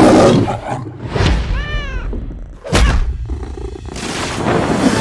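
A cartoon lion roars, then gives a short cry whose pitch rises and falls several times, and there is a sharp thud near the middle, with music under it.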